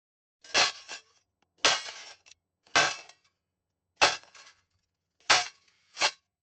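Shovel digging a hole: six sharp strokes of the blade into the ground, roughly one a second, each with a short gritty tail, with silence between them.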